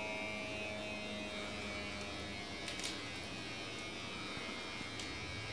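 Wrist blood pressure monitor's small electric pump buzzing steadily as it inflates the cuff, its pitch sinking slightly as the cuff fills.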